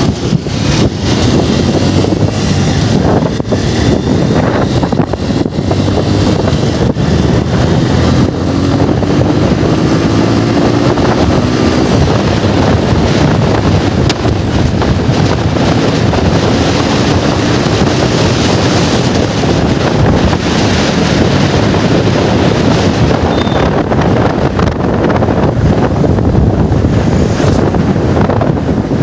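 Heavy wind rushing over a helmet-mounted microphone on a moving motorcycle, with the engine running underneath. About ten seconds in, the engine note rises briefly as the bike speeds up.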